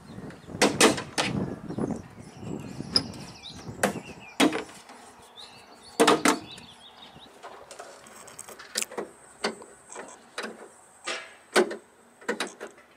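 Plastic tailgate trim panel of a Peugeot 106 being prised off by hand: a string of sharp clicks and knocks as its retaining clips pop free and the panel is handled.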